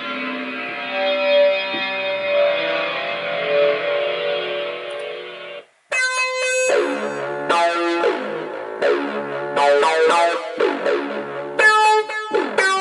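Synth presets from Steinberg HALion 3's Hypnotic Dance library played on a MIDI keyboard. A held, chordal synth sound cuts off suddenly about six seconds in. After a moment's silence a bright plucked preset follows, playing short, sharply struck notes that ring out and decay.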